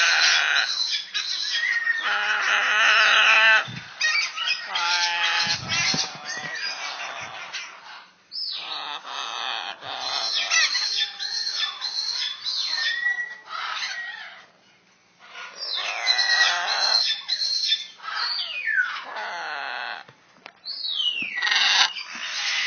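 Pet parrot vocalizing in a long series of harsh squawks and screechy calls, several of them long falling wails, broken by short pauses.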